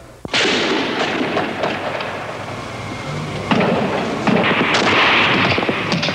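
Battle sound effects: dense gunfire and explosions that start abruptly and grow louder about halfway through.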